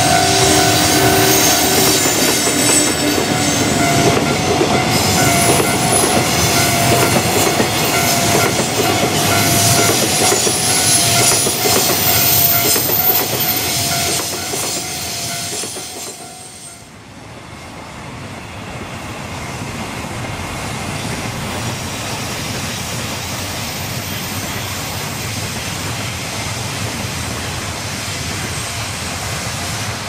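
Freight train hauled by an EF81 electric locomotive passing close by, its container wagons rolling and clattering over the rails with a steady high-pitched tone above the rumble in the first half. About halfway through the sound dips sharply, then the wagons roll past again more evenly and a little quieter.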